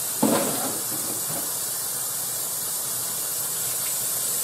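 A steady hiss runs throughout. About a quarter second in there is a brief clatter of kitchenware being handled at the counter, followed by a couple of softer knocks.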